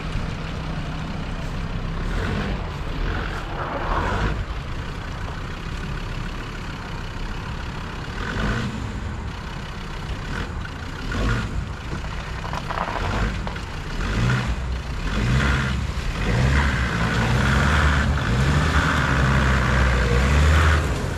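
Land Rover Discovery 2's Td5 five-cylinder turbodiesel engine pulling at low speed as the vehicle crawls through a shallow stream and up a grassy bank, getting louder and working harder over the last several seconds.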